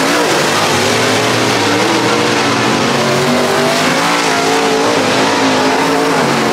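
Dirt late model race car V8 engines running hard on track, their pitch rising and falling as they rev through the laps.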